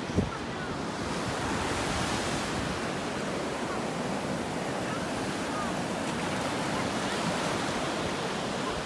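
Pacific surf washing up onto a sandy beach, a steady rush of breaking waves, with a brief thump just after the start.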